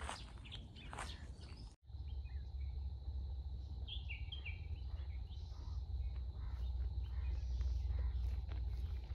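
Outdoor ambience in scrub woodland: small birds chirping in short calls over a steady low rumble, with a faint steady high tone. The sound drops out for an instant about two seconds in.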